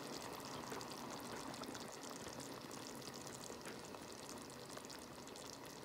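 Cheesy corn dip bubbling and sizzling in a Bella electric skillet: a steady wet crackle of small pops, with condensation trickling off the lifted lid into the pan.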